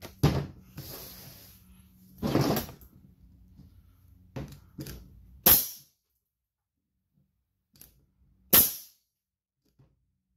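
Porter-Cable DA250B pneumatic finish nailer firing nails into a block of scrap wood: two sharp shots, about five and a half and eight and a half seconds in, after a few softer handling knocks. The nailer is firing normally after its leaking collar was replaced.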